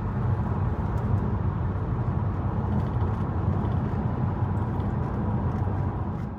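Steady low rumble of a car driving, with no changes until it cuts off abruptly at the end.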